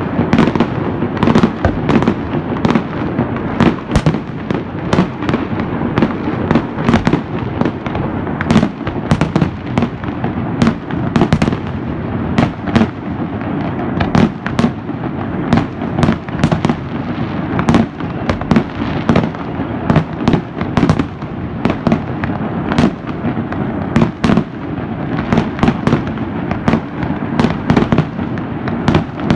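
Many fireworks going off at once: a dense, unbroken run of overlapping bangs and crackles.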